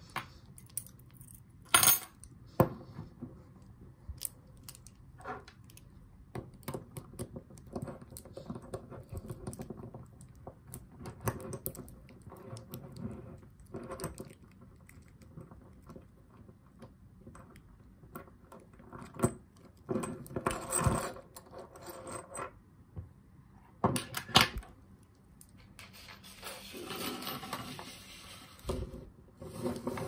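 Brass padlock being taken apart by hand: scattered sharp metallic clicks and clinks as the lock body, shackle and small parts knock together and are set down, with a few louder knocks. There are a few seconds of rustling near the end.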